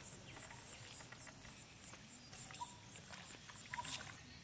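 Hands rustling and handling in grass, with a cluster of soft knocks near the end as a caught climbing perch is put into a woven basket. A faint, evenly repeated high chirping runs underneath.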